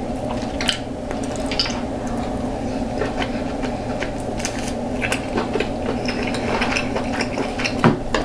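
Close-miked eating sounds: king crab leg shells cracking and being pulled apart, with wet squishing and scattered small clicks, and one louder crack near the end. A steady low hum runs underneath.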